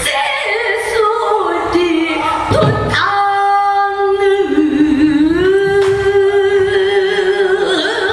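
Female pansori singer singing in full voice, drawing out long, bending notes, one held for several seconds, with a dip in pitch and a slide back up, against a few sharp strokes on the buk barrel drum.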